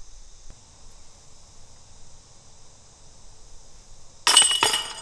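Steady high-pitched insect buzz, then about four seconds in a putted disc strikes the hanging metal chains of a disc golf basket, which clash and jangle loudly and keep ringing.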